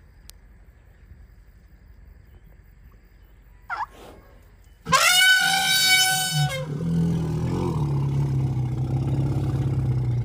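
Elephant trumpeting: a brief rising squeak about four seconds in, then a loud, high, brassy trumpet blast about a second and a half long. A low rumble follows and carries on to the end.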